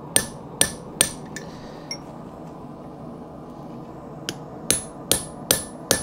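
Hammer blows on steel with a bright metallic ring, about two or three a second. Three come at the start, and a run of five begins about four seconds in.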